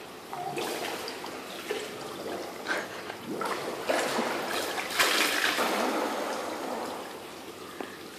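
Pool water splashing and churning as a person swims through it, in uneven bursts that grow louder from about three seconds in, peak around five seconds, and then die away.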